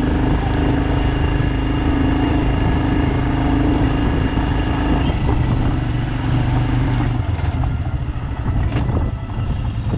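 Royal Enfield Himalayan's single-cylinder engine running steadily under way, with wind noise over the microphone. About seven seconds in the engine note drops and turns uneven as the bike slows.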